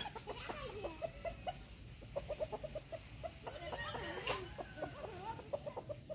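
Domestic chickens clucking, a long run of short repeated notes.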